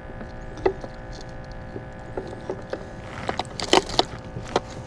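Scattered knocks and taps on a kayak, with a quicker cluster of them about three seconds in, as a speckled trout is handled and unhooked. A faint steady hum runs underneath.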